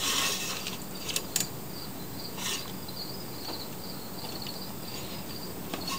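Insects chirping in a steady, pulsing high trill, with a short rustle at the start and a few light clicks from handling the metal recoil starter housing.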